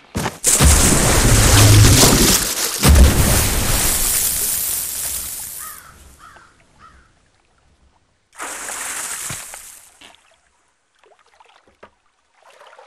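A huge water splash, as if something heavy plunges into the lake: a loud crash of water with a deep rumble, a second heavy hit about three seconds in, then sloshing that fades over a few seconds. About eight seconds in comes a second, shorter surge of splashing water.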